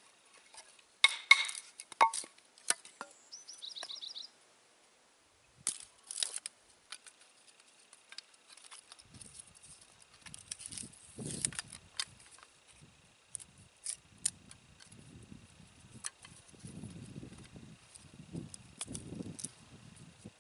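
Hatchet splitting small sticks of wood into kindling: irregular sharp knocks and cracks as the blade strikes and splits the wood, loudest in the first few seconds. After that come scattered lighter taps with soft rustling as the split pieces are handled.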